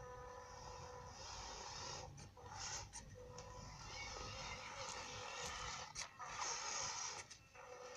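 Electric motor and gearbox of a JJRC/WPL ZIL-150 4x2 scale RC truck whining as it drives slowly, cutting out briefly a few times as the throttle is let off.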